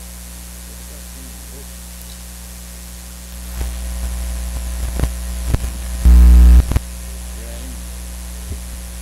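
Steady electrical mains hum from the chamber's microphone and sound system. About three and a half seconds in it gets louder, with several sharp clicks, and a brief, very loud buzz of the hum about six seconds in.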